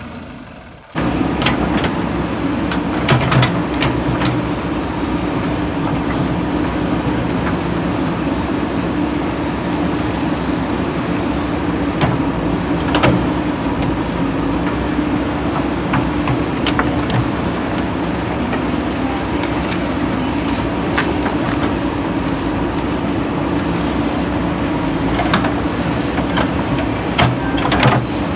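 JCB 3DX backhoe loader's diesel engine running steadily at working speed, with scattered sharp clanks and knocks from the machine at work. The sound comes in suddenly about a second in.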